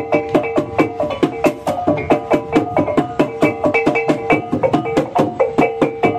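Background music: a fast, steady run of short, struck, pitched percussion notes.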